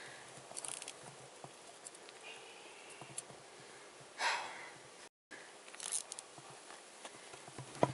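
Faint rustling and small clicks of handling noise, with one short hissing burst about four seconds in and a brief cut to complete silence a second later.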